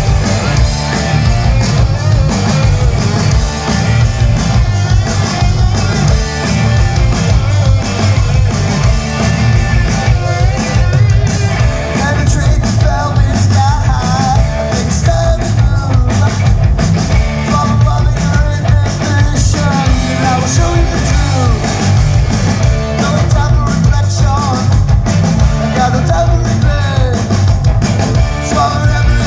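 Live rock band playing loud and steady: electric guitars, bass and a drum kit, with a male lead singer on vocals.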